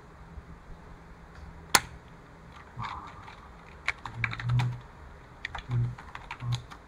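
Typing on a computer keyboard: a single sharp click nearly two seconds in, then an irregular run of keystrokes with a few heavier thuds.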